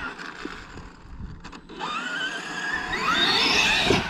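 Electric motor of a radio-controlled vehicle speeding up: a whine that rises in pitch over the second half.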